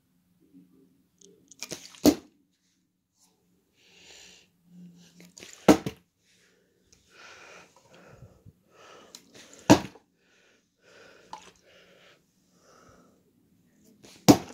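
A plastic drink bottle partly full of liquid flipped and landing on carpet four times, about every four seconds, each landing a sharp thud, with fainter rustling between the tosses.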